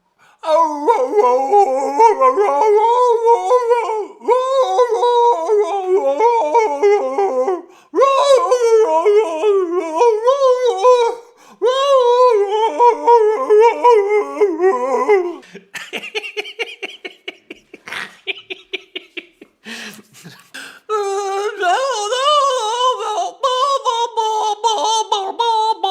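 A man's voice making weird, high wavering vocal noises in long held phrases of a few seconds each, with short breaks between. About two-thirds of the way through the voice gives way to a rapid run of clicks before the wavering noises resume.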